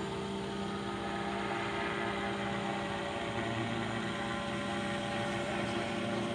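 Engine of a small propeller airplane droning steadily as it climbs overhead.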